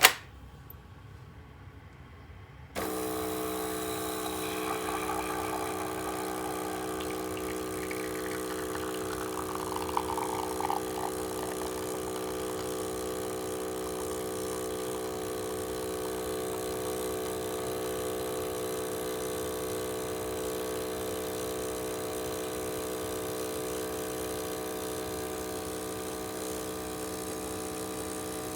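A sharp click at the start, then about three seconds in the Nescafé Gold Blend Barista coffee machine starts up and runs with a steady pump hum and hiss as it dispenses a drink.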